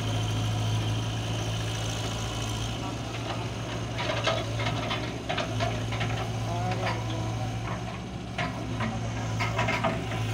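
Heavy diesel engine of a tracked excavator running steadily under load as it digs and swings sand into a truck, with scattered knocks and clatter from about four seconds in.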